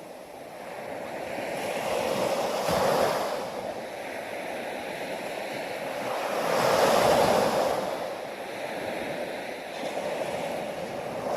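Ocean waves breaking and washing ashore, the surf swelling and falling back twice: once about two to three seconds in, and again, louder, around seven seconds in.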